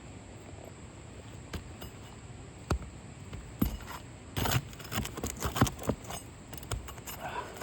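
Irregular taps, clicks and short scrapes from hands-on work on an asphalt-shingle roof, a few sharp knocks in the first half, then a quick run of rough scraping sounds in the middle.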